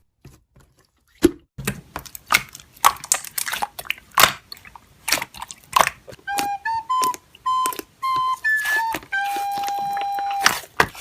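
Slime being squished and pressed, giving many sharp crackling clicks. From about halfway through, a simple tune of short beeps at changing pitches joins in, with one longer held beep near the end.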